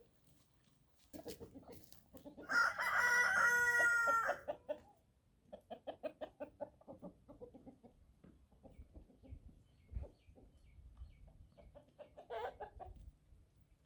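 Rooster crowing once, a loud call lasting about two seconds, followed by a run of rapid clucks and a short call near the end.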